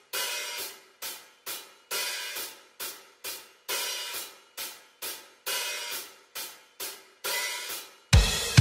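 Isolated rock drum track playing hi-hat and cymbals alone, with no kick or snare: a longer ringing stroke followed by two short ones, repeating about every two seconds. About eight seconds in, the full kit comes in loudly with bass drum and snare.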